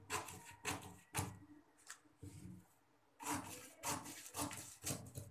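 Large tailor's shears cutting through a paper pattern: a run of about four snips roughly half a second apart, a pause about two seconds in, then another run of about five snips.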